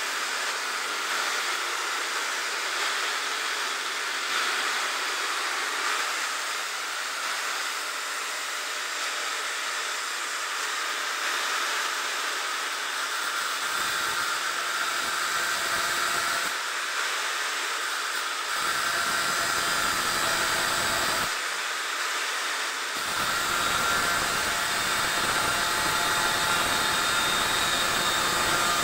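Electric angle grinder cutting into a steel crossmember: a steady whine over a grinding hiss. A deeper grinding comes and goes from about halfway through and holds near the end, a little louder.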